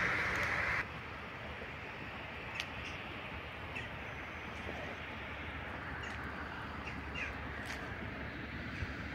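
A louder steady rush of noise stops abruptly under a second in. It gives way to quiet outdoor ambience with a few short, faint crow caws scattered through it.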